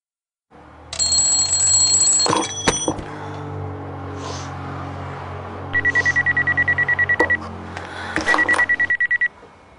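Mobile phone alarm beeping rapidly at one high pitch, in two runs of a second or two, the second cut off near the end, over soft background music.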